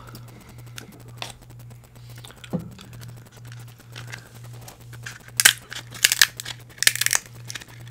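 King crab shell being cut and cracked open, a run of loud sharp snapping crunches from about five seconds in, after a few faint clicks. A low steady hum runs underneath.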